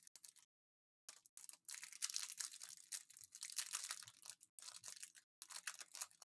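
Foil trading-card pack wrappers crinkling and tearing as packs are torn open by hand, starting about a second in and going on with a few short pauses.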